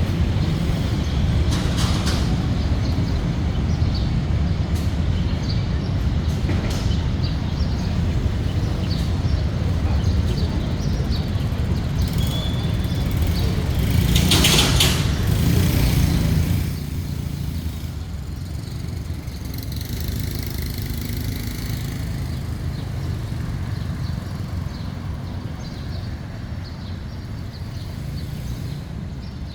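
Outdoor background noise with a steady low rumble of vehicle traffic. A louder passing sound, like a vehicle going by, comes about 14 seconds in, and the level drops about two seconds later.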